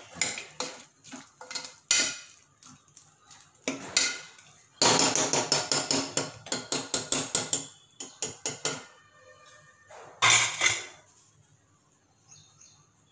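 A metal spoon stirring and scraping chopped vegetables in an aluminium pressure cooker pan, clanking against the pot's sides. A fast run of knocks comes in the middle, and one last loud clank comes about two-thirds of the way in, after which the sound dies away.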